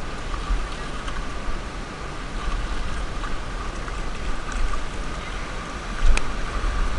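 Sea surf washing over shoreline rocks, with wind rumbling on the camera microphone; a single sharp knock about six seconds in.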